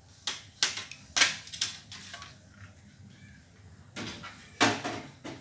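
Metal hand tools clinking and clattering as a screwdriver is picked up: a string of sharp, irregular metallic knocks, with the loudest about a second in and again near the end.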